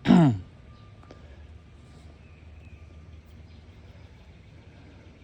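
A man's voice for a moment, sliding down in pitch, then a faint steady outdoor background with a single soft click about a second in.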